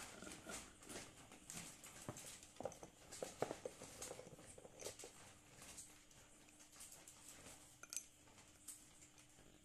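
White school chalk crushed under a rolling pin on a hard board: faint crunching and crackling, busiest in the first half. The crackle thins out later, with a sharp click near the end as whole chalk sticks are set down on the powder.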